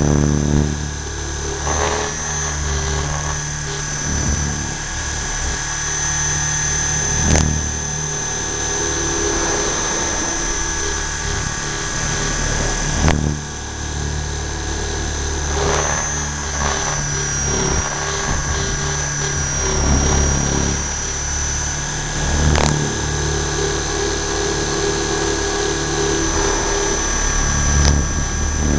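T-Rex 600 radio-controlled helicopter in flight, heard from a camera mounted on it: a steady high whine over the low thrum of the rotor drive, which swells and eases as the helicopter manoeuvres. A few brief sharp clicks.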